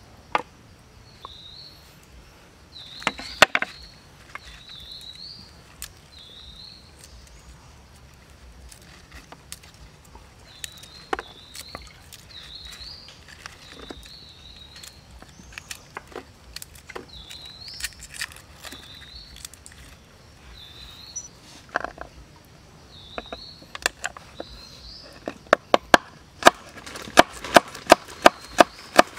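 Knife chopping garlic cloves on a wooden cutting board: a quick run of sharp knocks, about four a second, in the last few seconds. Before that, scattered taps and knocks from handling food and sticks, with a short high chirp repeating about once a second.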